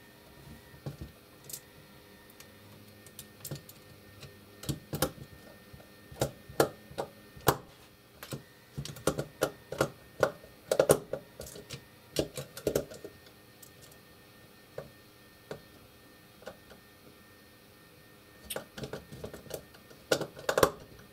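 Irregular sharp plastic clicks and taps as the plunger of a Siemens 3TB41 contactor relay is pressed in by hand and released while its contact terminals are checked for continuity, with a quieter stretch in the middle.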